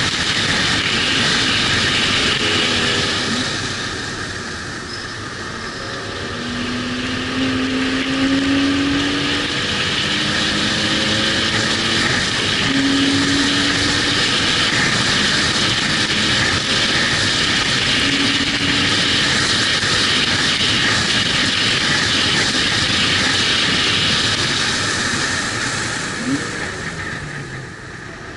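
Car being driven hard on a road-racing circuit: heavy wind and road noise over the engine, whose note climbs in pitch through several stretches of acceleration. The sound eases briefly about four seconds in and again near the end.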